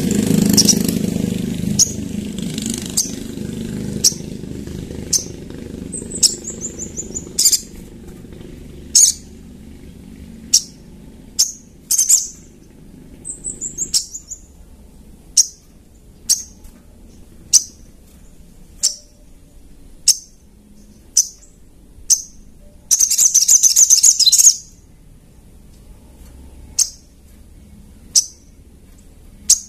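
Little spiderhunter (sogok ontong) calling: sharp, high single chips about once a second, two quick falling trills, and a louder, dense burst lasting over a second about three quarters of the way through. A low rumble fades out over the first few seconds.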